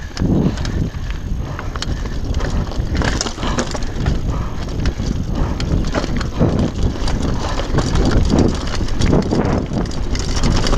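Downhill mountain bike rolling over loose rocky scree: tyres crunching on stones, with the bike clattering and rattling over the bumps in many short knocks. A steady low rumble of wind on the microphone runs underneath.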